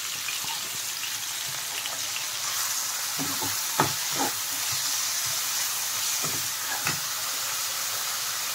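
Chopped onions just added to hot oil sizzling in a nonstick pan: a steady hiss. A steel ladle stirs and scrapes through them, with a few knocks against the pan about three to four seconds in and again near seven seconds.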